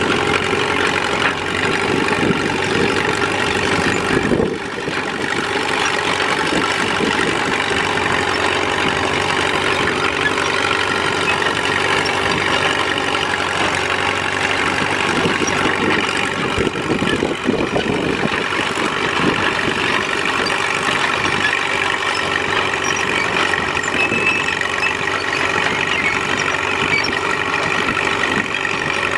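1941 Caterpillar D2 crawler tractor's four-cylinder D3400 diesel engine running steadily under load as it pulls a two-bottom moldboard plow, with a brief dip in loudness about four and a half seconds in.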